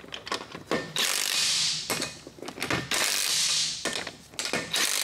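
DeWalt cordless impact wrench running down a car's wheel lug nuts in three bursts of about a second each, with small clicks of the socket between them as it moves from nut to nut. The lug nuts are being snugged in a cross pattern before final torquing by hand.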